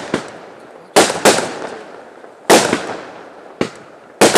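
Aerial fireworks bursting in the sky: a series of sharp bangs about a second or so apart, each followed by a fading crackle.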